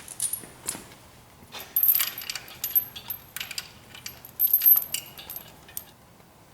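Loose steel bolts and washers jingling and clinking together in a hand, with sharp metallic clinks in two louder clusters, about two seconds in and again around four and a half seconds in.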